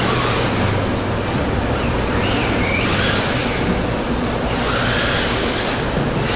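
Traxxas Rustler 4x4 RC truck driving, its electric motor whine rising and falling several times as it speeds up and slows, over a steady rush of tyre and ground noise.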